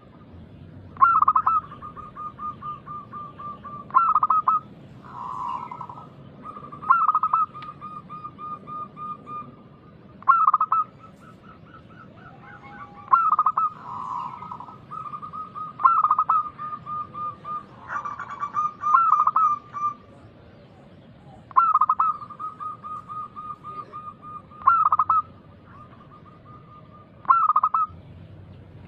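Zebra dove (perkutut) cooing song: repeated phrases, each opening with a loud accented note and running on in a fast train of softer coos, about every three seconds, with a few softer overlapping calls.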